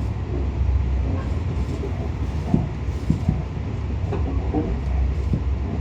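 Tobu Tojo Line commuter train running, a steady low rumble with a few short knocks from the wheels partway through.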